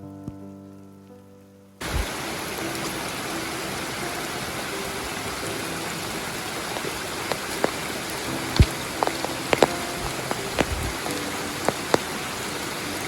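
Soft music notes fade out, then a sudden cut to a steady rush of falling or running water, with scattered sharp knocks and taps over it.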